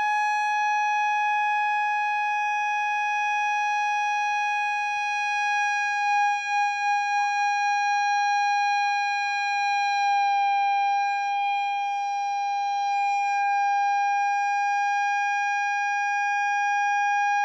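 Loud steady tone from a loudspeaker driver blown through a cardboard tube at a glass beaker, tuned to the beaker's resonant frequency to make it vibrate and shatter. About six seconds in, the pitch wobbles and pulses briefly, then settles slightly lower.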